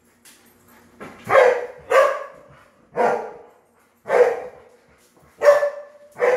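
A dog barking: six barks, roughly a second apart.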